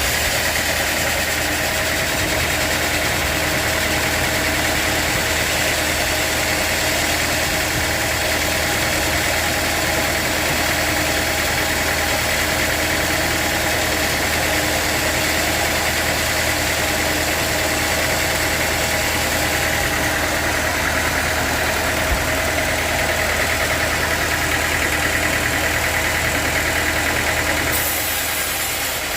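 Sawmill machinery running steadily: a continuous engine drone with a steady mechanical whir. The sound shifts slightly near the end.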